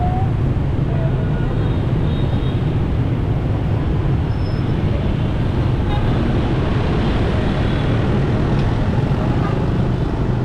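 Steady road noise of a car driving through city traffic: a low, even rumble of engine and tyres with the hum of surrounding vehicles.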